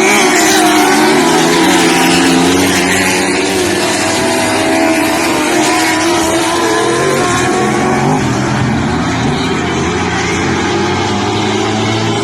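A field of lightning sprint cars racing, several engines running loud at once, their overlapping pitches rising and falling as the cars go around.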